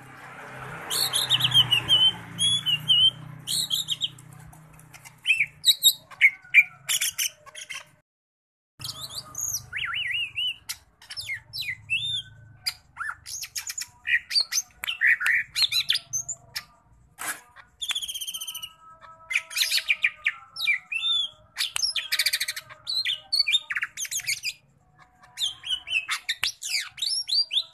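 Green leafbird (cucak ijo) singing a rapid, varied run of chirps, whistled glides and harsh notes, stringing together its mimicked song phrases, with short pauses. A low background rumble sits under the song for the first few seconds and again around ten seconds in.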